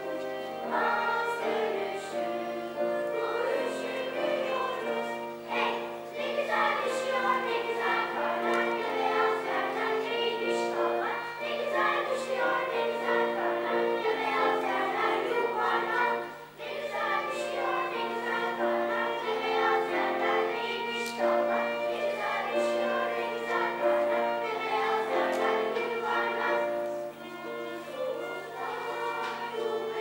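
Children's choir singing together, accompanied by a violin, with a brief pause between phrases about halfway through.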